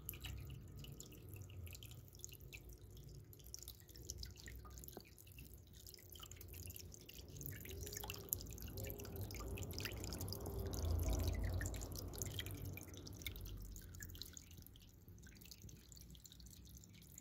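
Small rectangular tabletop cascade fountain: water trickling and dripping into its basin in many small splashes. It grows louder for a few seconds in the middle, with a low rumble.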